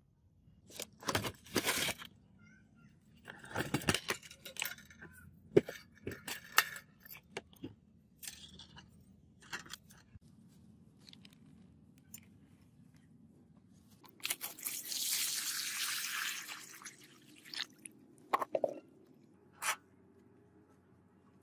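Clicks and small metal knocks as a rusted revolver frame is handled and set into a plastic tub, then about three seconds of water pouring into the tub, followed by a few light knocks.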